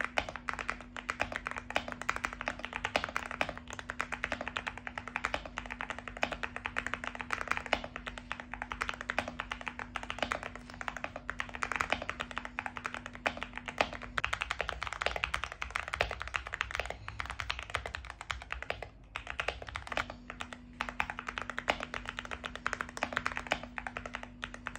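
Yunzii AL66 aluminium mechanical keyboard with milk linear switches being typed on quickly, a continuous stream of key clacks. The board has a tape mod and a force break mod applied, which give it a louder, more poppy sound.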